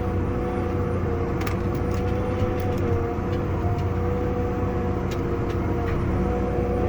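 Tractor engine running steadily under load, a low drone with a held whine over it and a couple of faint clicks.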